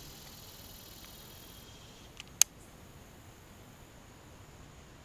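Faint outdoor quiet with a thin insect buzz that stops about two seconds in, then a single sharp click from the baitcasting reel being handled, with a softer click just before it.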